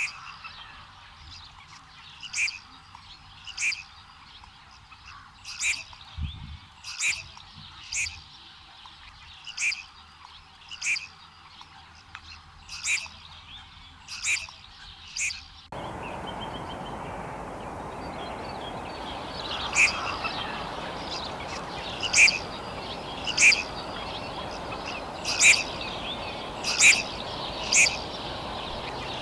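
Red-crested pochard calls: short, sharp, high notes repeated every second or so. About halfway through, a steadier background hiss gets louder.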